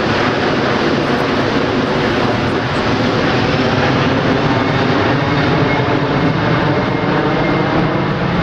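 Jet noise from an Airbus A380's four turbofan engines as the airliner passes low overhead and banks away: a loud, steady rush.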